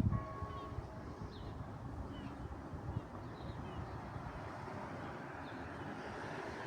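Steady low outdoor rumble with a few faint, short bird chirps. The last ring of a bell dies away in the first second.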